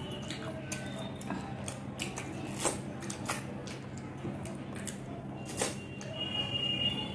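Close-up mouth sounds of eating chilli chicken with the fingers: scattered wet smacks and clicks of chewing and finger licking, the sharpest about two and a half, three and five and a half seconds in, over a steady low hum.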